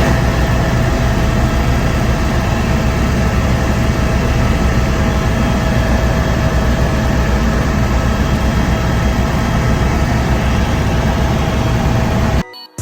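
Loud, steady engine noise with a fast low throb and a constant whine, cutting off abruptly near the end.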